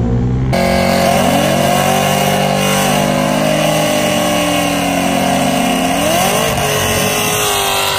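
Cadillac CTS-V's supercharged 416 cubic-inch stroker V8 doing a burnout: the engine is held at high revs with its pitch wavering over the hiss of the spinning, smoking rear tire. The pitch dips and climbs again about six seconds in. The first half-second is the tail of a different car's run, cut off abruptly.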